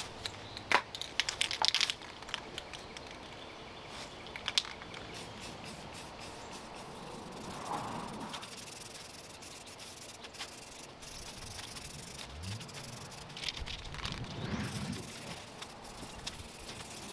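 Aerosol can of self-etch primer: a few sharp rattles near the start, then hissing as it sprays in short passes.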